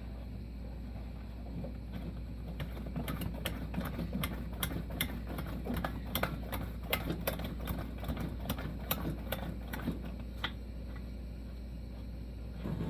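A run of quick mechanical clicks, about three a second, from the Coleman 220J lantern's hand air pump being stroked to pressurize the fuel tank, its pump leather freshly oiled. The clicks start a couple of seconds in and stop about ten seconds in.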